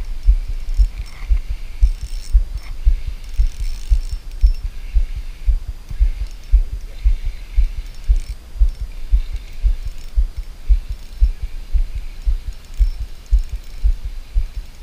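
Shimano Aernos 1000FA spinning reel being cranked steadily to retrieve a micro jig, heard as an even run of low thumps, about two to three a second, with faint ticks above them.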